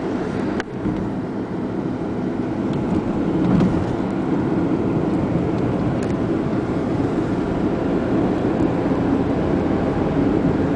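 Steady engine and tyre noise heard inside the cabin of a moving car, with a brief click about half a second in.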